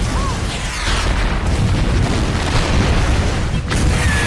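Film battle sound effects: explosions and cannon fire merging into a continuous heavy rumble.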